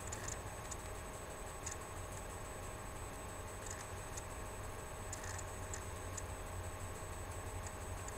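Quiet room tone: a steady low hum with a few faint, irregular light ticks.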